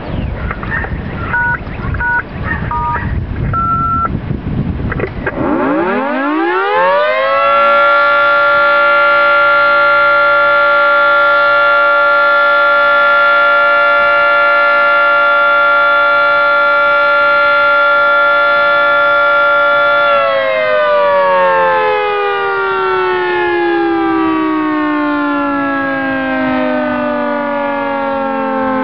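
Outdoor warning siren test: a few short electronic beeps in the first seconds, then the siren winds up in a rising howl about five seconds in. It holds a steady tone for about twelve seconds, then winds down with slowly falling pitch.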